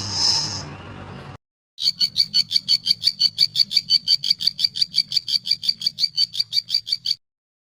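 An animal's call: a rapid trill of evenly repeated high-pitched pulses, about seven a second, lasting about five seconds before it cuts off suddenly. It follows a short gap after the fading end of a cat's meow.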